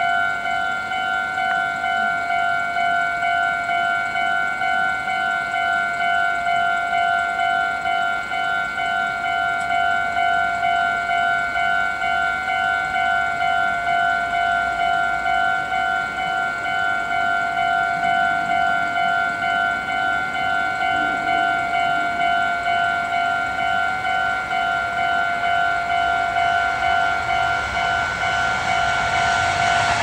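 Japanese level crossing's electronic warning bell ringing in a fast, steady repeating pattern. Near the end the rising rush of an approaching train joins it.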